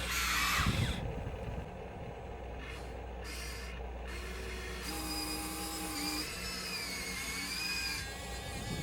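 Small electric motors of radio-controlled construction models whining over a steady low hum, the pitch gliding down in the first second and then wavering up and down as the machines work.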